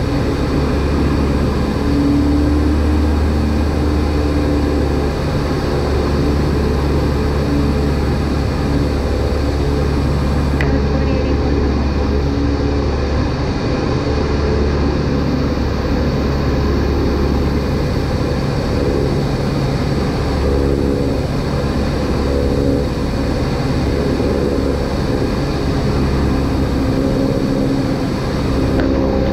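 Single-engine light aircraft in cruise flight, its engine and propeller giving a steady, unbroken drone heard inside the cabin.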